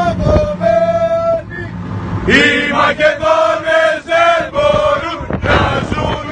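A group of male soldiers chanting in unison, a loud rhythmic call in short repeated syllables, with a fresh loud entry about two seconds in.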